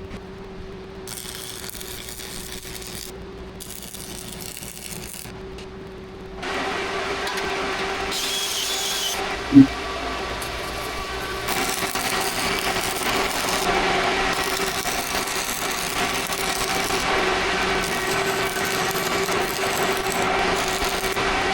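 Stick-welding arc from an old 1960s-era stick welder, crackling and buzzing as a bead is run on an excavator bucket. It comes in two short runs in the first few seconds, then runs on continuously and louder from about six seconds in, over a steady hum.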